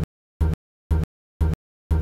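A short clip of low, buzzy sound repeated about twice a second, each repeat cutting off sharply into dead silence: a stuck, stuttering playback loop.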